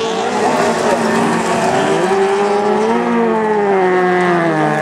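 Several autocross special touring cars racing on a dirt track, their engines revving hard and overlapping. The engine notes rise and fall with throttle and gear changes: a climb about two to three seconds in, and a dip near the end.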